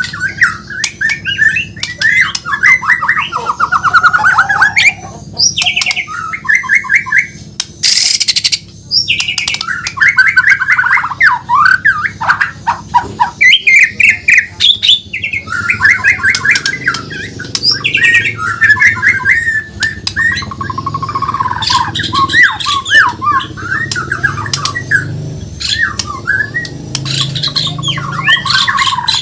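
White-rumped shama (Bornean murai batu) singing a continuous, rapidly varied song of whistled phrases and fast trills, broken by a short harsh note about a third of the way through.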